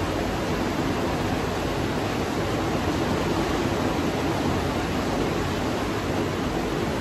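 A steady, even rushing noise with no distinct events, unchanged throughout.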